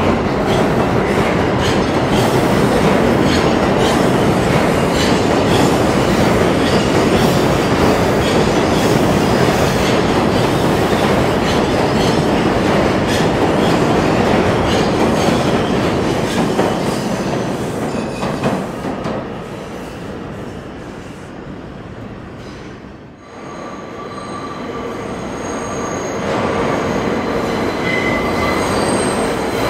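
New York City Subway train running past in the IRT 7th Avenue line tunnel: loud steady wheel-and-rail noise with many clicks, fading away about twenty seconds in. Then a (1) train rolls into the very tight loop at South Ferry, its wheels squealing in several steady high tones on the sharp curve.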